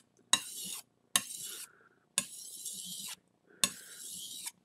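Kitchen knife blade sliding across the wet 6,000-grit side of a whetstone: four strokes, each a short scrape that starts with a sharp tick, with brief pauses between them.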